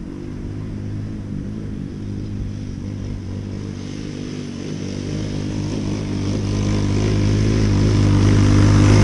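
Coolster Mini Jeep's 125cc single-cylinder four-stroke engine running steadily as the small vehicle drives across the field toward the microphone, growing louder as it approaches.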